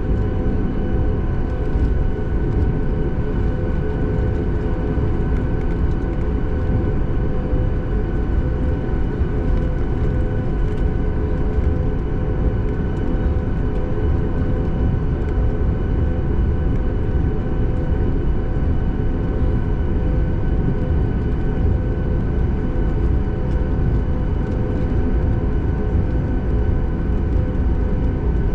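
Boeing 737 MAX 8 cabin noise on the ground before takeoff: a steady low rumble with several steady whining tones from the idling CFM LEAP-1B engines and cabin systems.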